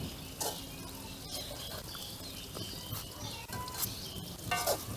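Wooden pestle crushing and grinding green chillies and garlic in a terracotta mortar: soft irregular scraping, squelching and light knocks.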